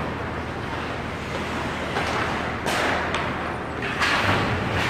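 Ice hockey rink ambience during play: a steady hiss of the hall with skates scraping on the ice, and two short, sharp hissing scrapes, one a little past halfway and one near the end.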